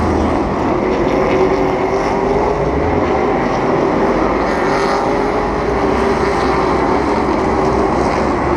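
Race car's engine running steadily at low speed, heard up close from on board, an even drone with a steady hum and low rumble beneath it.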